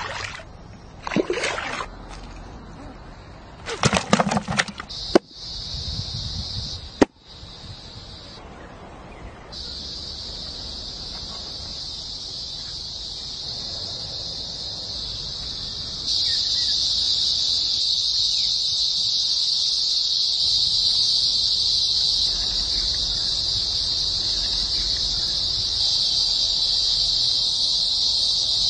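A few brief splashes of hands in shallow muddy water, then a steady, high-pitched insect drone that gets louder a little past halfway through.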